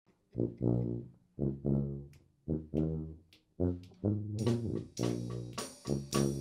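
A sousaphone opens with a low bass riff in short repeated phrases. About four seconds in, the rest of the brass band comes in with horns, snare, bass drum and cymbals, playing a New Orleans brass-band groove.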